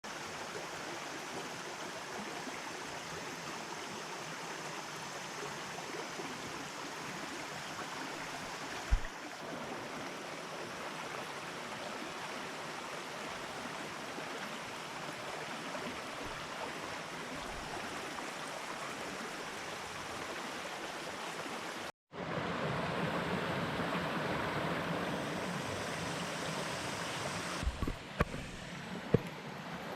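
Mountain stream water rushing steadily. About two-thirds of the way through it cuts briefly and comes back louder, and a few short sharp knocks stand out, one early and a couple near the end.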